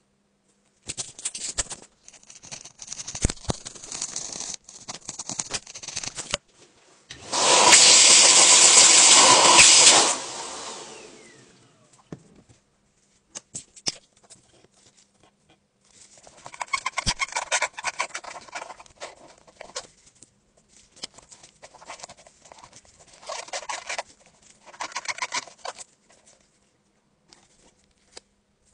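Irregular scratching, rasping and clicking of a cleaning tool working an AirPod's metal speaker mesh. About seven seconds in, a small motorised tool comes on loudly for about three seconds, then winds down.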